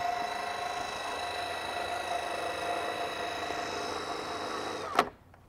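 Electric gear motor of a greenhouse roll-up side curtain running steadily with a whine, turning the roll bar that winds the curtain. It stops with a short knock about five seconds in.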